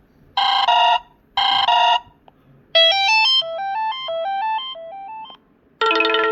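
Kyocera DuraForce Pro phone playing preloaded ringtones: two short two-note electronic chimes about a second apart, then a quick run of beeping tones stepping up and down, and a new, fuller ringtone starting near the end.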